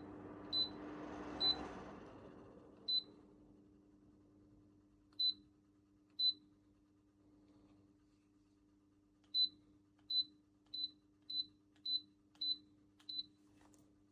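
A JERVAMNI bladeless tower fan's control panel beeps about a dozen times, short single high-pitched beeps acknowledging button presses on the fan or its remote, the last seven about two a second. Under the beeps the fan's motor hums steadily, and its air rush dies away in the first few seconds as the setting is turned down.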